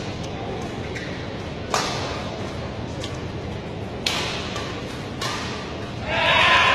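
Badminton rally: four sharp racket strikes on the shuttlecock, about a second apart. Near the end the rally is over and the crowd cheers and claps, louder than the strikes.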